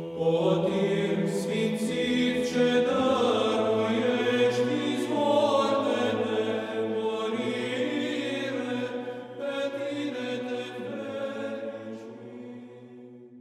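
Choral chant: several voices sing slow, sustained notes over a low held drone note. It fades out over the last couple of seconds.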